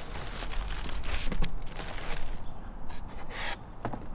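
Unpacking: rustling and crinkling of plastic-wrapped packing bags and parts being handled in a cardboard box with a foam insert, with a louder rustle near the end.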